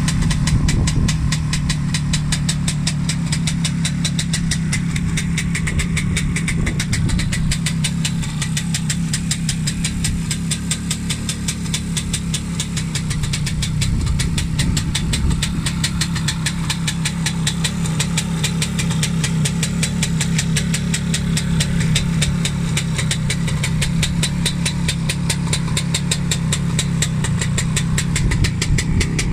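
1966 Suzuki B105P Bear Cat's two-stroke single-cylinder engine idling steadily, with a rapid, even firing beat.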